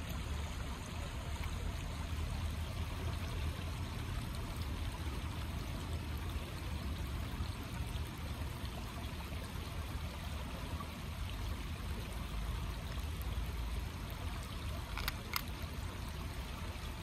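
Steady rush of flowing river water, with two short clicks about fifteen seconds in.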